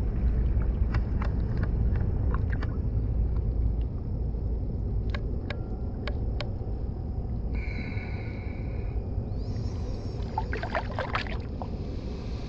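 Shallow water sloshing and splashing around a largemouth bass held at the bank and released, with sharp little splashes and a cluster of stronger strokes near the end as the hand sweeps through the water, over a low rumble.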